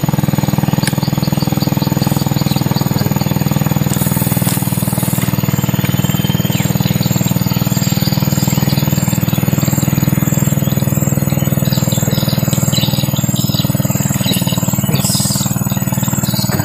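A steady low engine drone that runs without a break, with bird chirps over it now and then.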